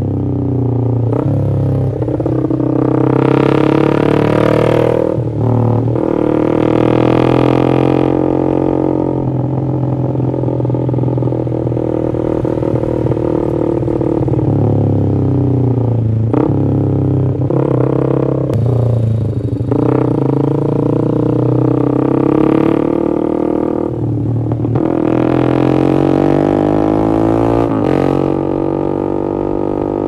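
Yamaha MX King 150's single-cylinder four-stroke engine breathing through an X1 Speed Racing SH-01 aftermarket full exhaust while riding. The exhaust note climbs as the engine revs out and drops back at each gear change or throttle lift, several times over.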